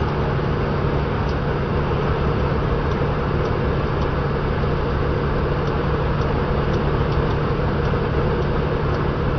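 Steady drone of a big truck's engine and road noise heard inside the cab at about 67 mph, with a few faint high ticks now and then.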